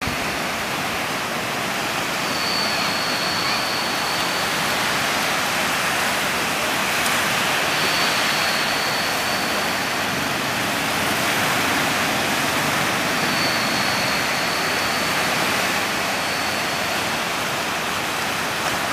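Steady rushing of sea surf washing onto a beach. A thin, high tone comes and goes about every five seconds.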